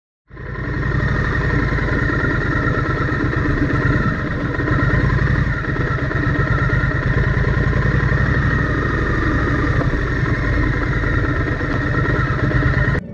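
Motorcycle engine running steadily while riding, with a steady rush of noise over it; it cuts in just after the start and cuts off abruptly just before the end.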